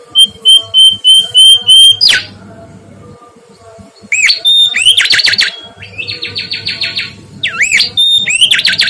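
Mangrove whistler (kancilan bakau) singing: a run of short, even whistled notes, then a sharp whip-like sweep about two seconds in. After a pause of about two seconds comes a longer phrase of rising whistles, fast trills and a buzzy rattle.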